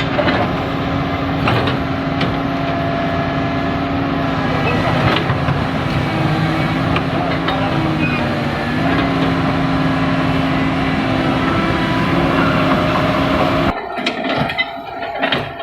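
Komatsu hydraulic excavator's diesel engine running steadily, its pitch dipping briefly about eight seconds in, with a few sharp metallic knocks. The engine sound cuts off abruptly near the end, leaving quieter clicks.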